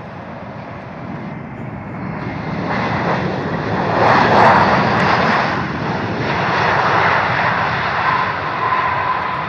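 Jet airliner passing close by, its engine noise swelling to a peak about halfway through and then easing slightly, with a steady high whine coming in near the end.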